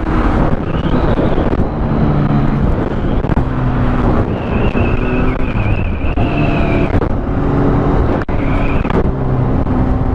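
Motorcycle engine running under way, its note rising and falling several times, over loud road and wind rush.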